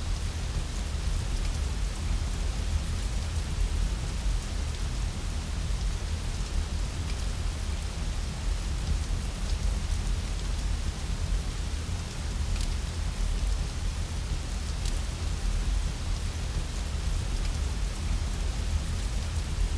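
Rain and a fireplace mixed as a steady ambience: an even rain hiss over a deep, constant low rumble, with a few faint sharp crackles scattered through it.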